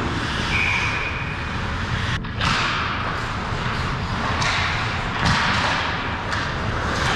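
Ice hockey play in front of the net: skates scraping and hissing on the ice, with several sharp knocks of sticks and puck, one of them a shot on the goalie.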